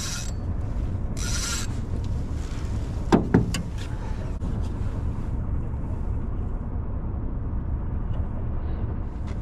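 Fishing gear being handled in a small boat: rustling in the first couple of seconds, then two sharp knocks about three seconds in as the rod is laid down against the boat, over a steady low rumble.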